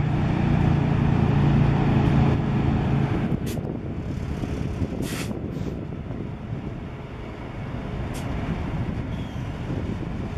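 GE E60C electric locomotives of the Black Mesa & Lake Powell Railroad running, with a steady low hum for about the first three seconds. The hum then gives way to a rumbling noise broken by a few short hisses.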